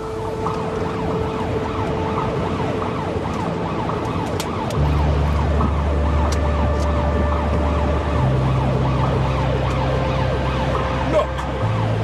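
Police patrol car's siren on yelp, heard from inside the cabin: a fast, repeating rising wail of about three sweeps a second, over a low steady drone that shifts pitch twice.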